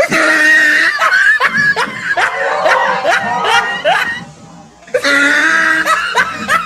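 Loud burst of laughter, a comic laugh effect, starting suddenly; it breaks off about four seconds in and starts again about a second later.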